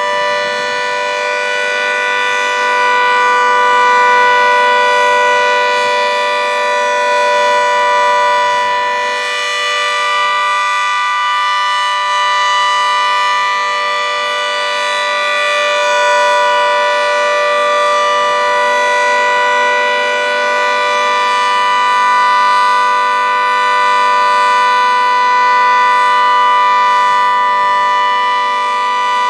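Federal Signal 2T22 dual-tone outdoor warning siren sounding a steady alert: a loud, constant two-note chord held at full pitch, swelling slightly in loudness now and then.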